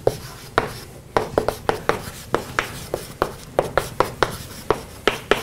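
Chalk writing on a blackboard: an uneven run of sharp taps and short scratches, about four a second, as each stroke of chalk hits the board.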